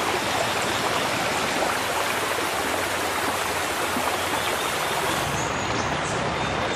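Shallow stream rushing and splashing over rocks, a steady even noise.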